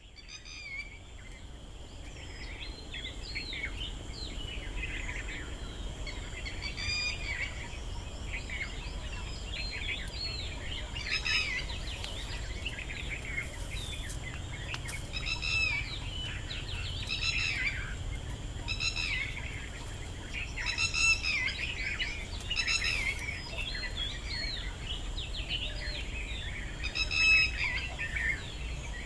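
Many birds chirping and calling in an outdoor chorus, short chirps and trills overlapping throughout, over a faint steady high tone and a low rumble. The sound fades in over the first couple of seconds.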